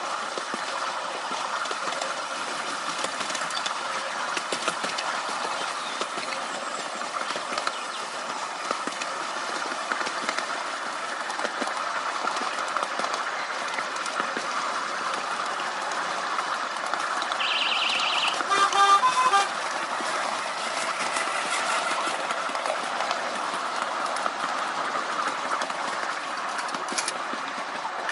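Miniature railway train running steadily, with the rumble and light clicking of small wheels on the track heard from the riding car. About two-thirds of the way in, the miniature electric locomotive sounds its horn: a brief high tone, then a few short toots, the loudest sound.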